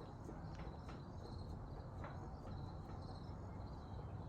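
Crickets chirping faintly in short repeated pulses, with a few faint clicks and a steady low rumble underneath.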